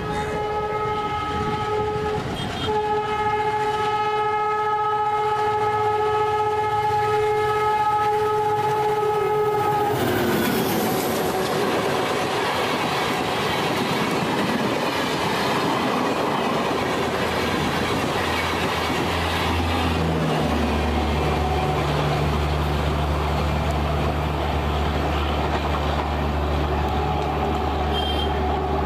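WDM3D ALCO diesel locomotive's horn sounding one long steady blast that cuts off about ten seconds in, followed by the train rushing past with wheel clatter over the rail joints. Near the end a low steady drone comes in under the passing noise.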